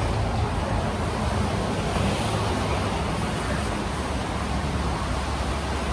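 Steady rushing noise with a constant low hum underneath, typical of a vehicle driving on a rain-wet road.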